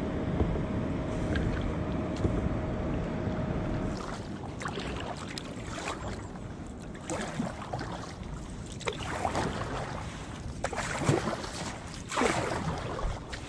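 Wind buffeting the microphone over choppy open water for the first few seconds. Then it gives way to calmer water and a kayak paddle dipping and pulling, with short splashes and swishes every second or two.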